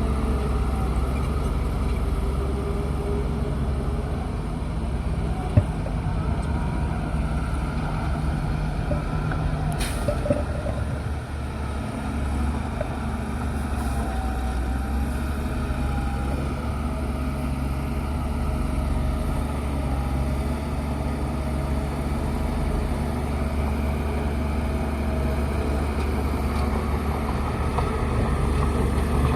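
Bulldozer's diesel engine running steadily, with a faint wavering whine above it and a couple of sharp clanks, one about five seconds in and another about ten seconds in.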